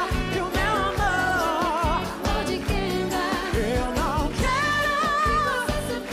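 Live pop song: a lead vocal with vibrato and sliding runs over a band's steady dance beat and bass.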